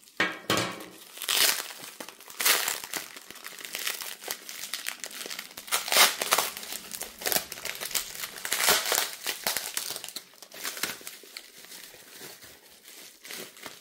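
Bubble wrap and a thin plastic bag crinkling and rustling as they are pulled apart and peeled off a phone by hand, in irregular bursts of varying loudness.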